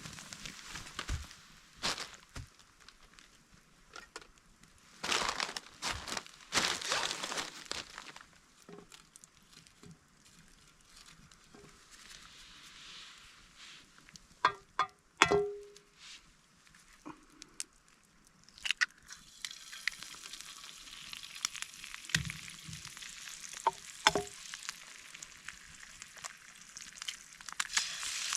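Food frying in a pan over a campfire, sizzling, with scattered clicks and knocks of utensils and a short run of metal clinks about halfway through. The sizzling grows louder in the second half.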